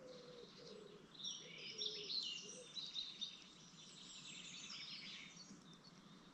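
Blue tit nestlings begging as the adult arrives to feed them: a dense chorus of high, overlapping chirps that starts about a second in, is loudest in the middle and fades out about a second before the end.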